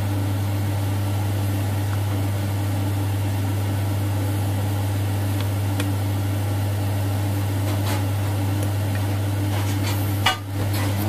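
A steady low hum from a running kitchen appliance motor, with a few faint clinks of a metal fork and spoon against a ceramic bowl of batter.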